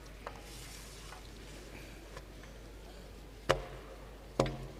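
Ramrod knocking twice inside the barrel of a muzzle-loading ceremonial cannon, about a second apart. Each knock is sharp and leaves a short metallic ring.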